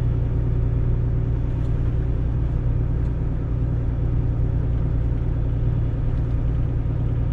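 Truck's diesel engine running steadily while the truck rolls slowly, heard from inside the cab as an even low drone with no revving.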